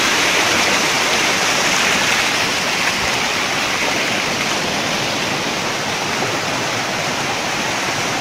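Shallow stream water cascading over low rock steps close by, a steady, even rush of water.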